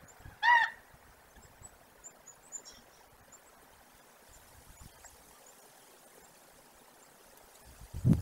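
A wolf eating from a carcass, with a loud low crunch near the end as it chews. About half a second in comes one short, loud pitched call, and faint high bird chirps sound on and off.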